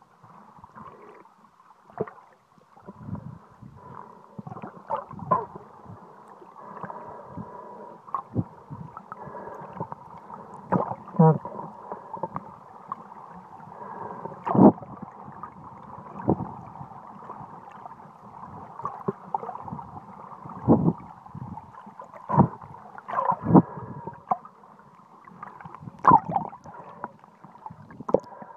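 Muffled underwater sound through a waterproof phone case: water rushing and sloshing against the case, with irregular knocks every second or two and a thin steady hum. The phone breaks the surface near the end.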